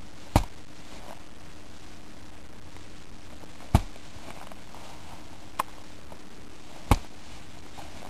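A snow-filled stuff sack dropped repeatedly onto a shovel blade lying on top of an isolated snow column, landing with sharp thuds about every three seconds, with a lighter one between the last two. The blows are loading the column in an extended column test, and the column is not yet fracturing.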